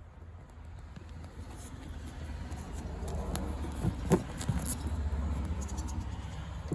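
Metal clinks and scrapes of a tire iron being fitted onto the square nut of a 2014 Dodge Durango's under-body spare-tire winch and starting to turn it, over a low rumble. The sharpest clink comes about four seconds in.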